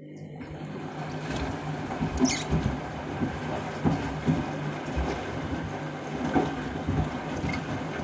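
Candy front-loading washing machine on its final rinse: the motor hums as the drum turns and water sloshes inside, with the shoes in the load knocking against the drum every second or so.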